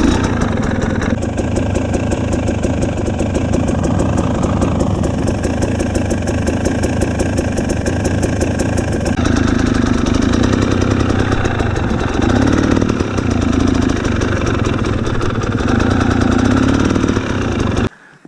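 A 2017 KTM 250 EXC two-stroke enduro engine running at low revs while the bike is ridden slowly over icy ground. The revs rise and fall a few times in the second half, and the sound cuts off abruptly near the end.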